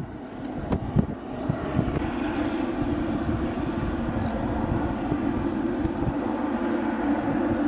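GE90 jet engines of a Boeing 777-300ER at taxi power, a steady rushing hum that swells over the first second or two and then holds. Wind buffets the microphone at the start.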